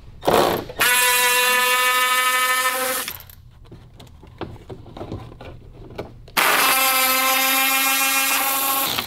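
Power driver spinning out the two 10 mm bolts that hold a Jeep JL's inner fender liner: a brief burst, then two runs of steady motor whine about two seconds each, one per bolt.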